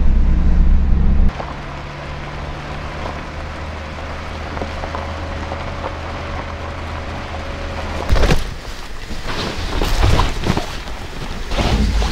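Vehicle engine droning inside the cab, cutting about a second in to a quieter steady engine hum with a faint whine from outside the vehicle on a dirt road. From about eight seconds in, irregular thumps and rustling noise break in.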